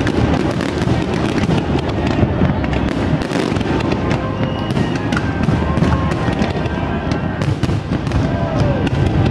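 Large fireworks display going off: loud, dense crackling and rapid popping of bursting shells over a steady low rumble of booms, with no break.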